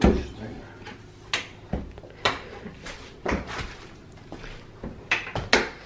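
Scattered knocks and clunks, about six in all, the loudest a low thump at the very start.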